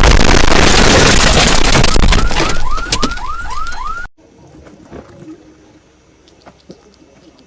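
Deafening, heavily distorted blast of noise, clipped at full volume, with a string of rising chirps, about three a second, in its second half. It cuts off abruptly about four seconds in, leaving faint scattered clicks.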